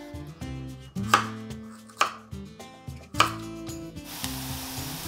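A chef's knife cutting carrot on a wooden cutting board, with a few sharp knife-on-board knocks about a second apart. Near the end it gives way to onions sizzling as they fry in a pan. Background music plays throughout.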